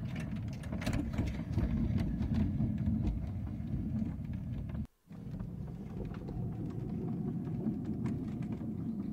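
A 7¼-inch gauge miniature railway brake van and small locomotive running along the track: a steady low rumble from the wheels, with frequent clicks and rattles. The sound breaks off for an instant about five seconds in.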